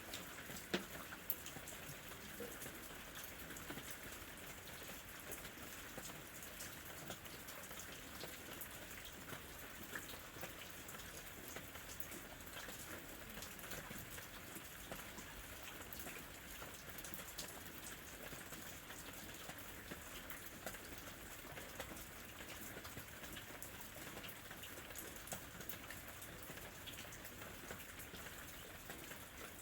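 Steady, fairly faint rain falling on a surface, with many individual drops ticking sharply throughout.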